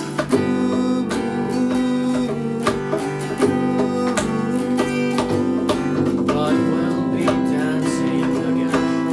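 Acoustic guitar playing an instrumental passage of a song, with steady picked and strummed chords and no singing.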